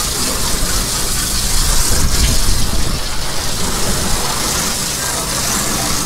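Water jetting from a deck-wash hose's pistol-grip spray nozzle onto a boat's EVA foam deck and icebox lid, a steady hiss of spray as the deck is hosed down.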